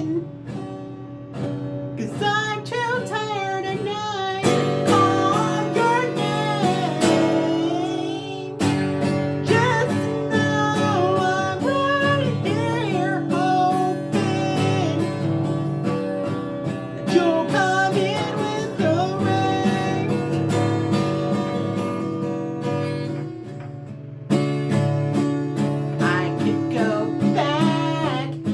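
A woman singing with acoustic guitar strumming, the voice wavering in pitch over steady chords, with brief dips in the playing about half a second in and just before the end.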